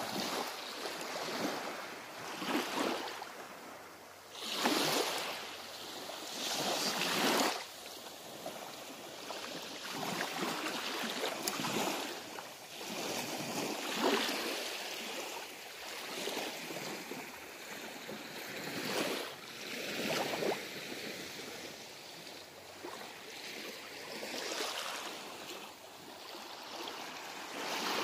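Gentle waves washing onto a sandy beach, swelling and fading every couple of seconds.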